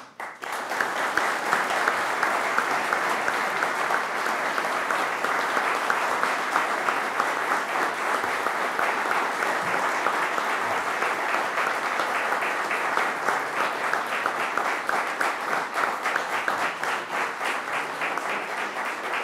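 Audience applauding steadily. In the last several seconds it thins out into more distinct individual claps.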